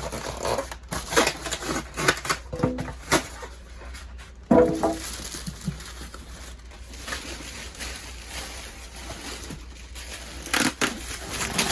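Foam and cardboard packing being pulled apart and handled, with irregular crunching and rustling and a few short squeaks of foam rubbing.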